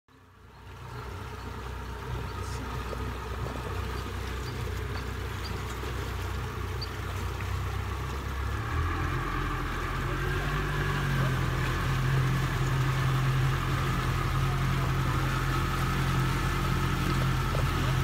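Outboard motor running as the boat moves through the water, with hull and water noise. About halfway through, the engine note changes and becomes a little louder.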